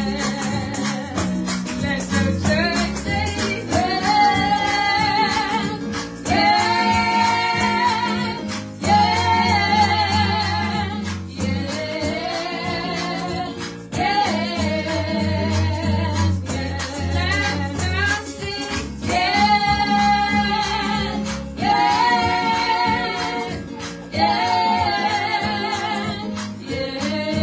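Two women singing a gospel song into handheld microphones, their voices held in long lines with vibrato, over an accompaniment of low sustained bass notes that change every few seconds.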